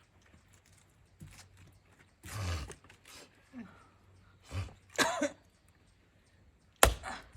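Effortful grunts and heavy exhales from a person swinging at oak firewood, then one sharp splitting blow on the log near the end.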